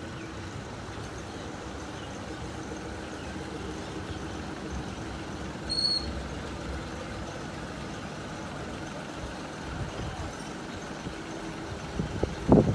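Small diesel locomotive's engine idling steadily, a low hum with a faint steady tone. A brief high chirp comes about six seconds in, and a much louder, uneven noise starts near the end.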